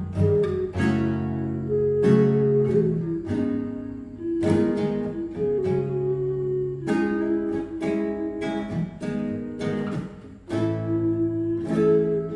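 Acoustic guitar playing plucked chords, with an ocarina holding a slow melody of long notes over it.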